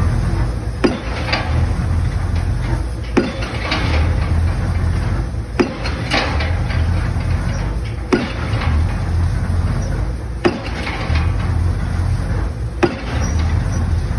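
A pile driver's hammer striking the head of a precast concrete pile at a slow, even pace, about one blow every two and a half seconds, six blows in all. The rig's engine runs steadily underneath.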